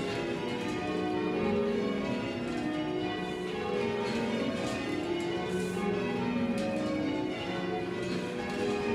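Cathedral church bells being rung full circle in change ringing: a steady, unbroken sequence of bells struck one after another, each note ringing on over the next.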